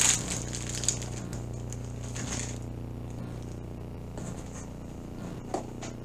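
Plastic packaging crinkling and rustling as a rolled canvas and bagged rhinestones are handled out of a cardboard box. The rustling is loudest at the start and again about two seconds in, with a sharp tap about a second in. A steady low hum runs underneath.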